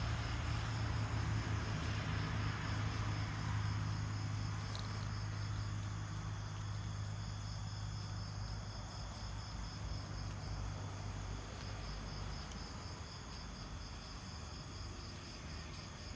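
A night chorus of insects calling in a steady, rapid pulsing, with a constant thin high whine alongside. A low hum underneath is strongest in the first few seconds and fades by the middle.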